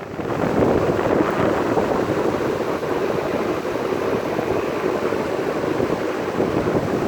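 GE W-2 vintage box fan running on high, a loud, steady roar of moving air.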